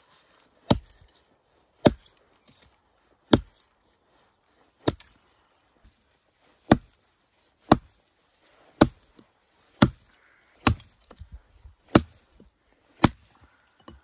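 Axe chopping into a dead, weathered log: eleven sharp blows, roughly one a second.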